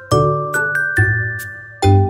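Background music: a light tune of struck, ringing notes over a bass line, a new note about every half second.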